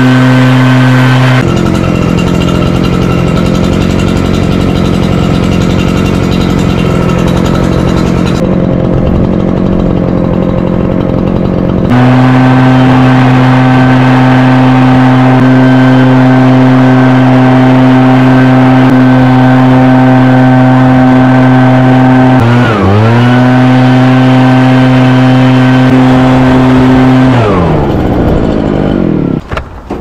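Stump grinder's gasoline engine running at a steady high speed, with a rougher, noisier stretch in the first third. About two-thirds of the way in its pitch sags briefly under load and picks back up, and near the end it winds down.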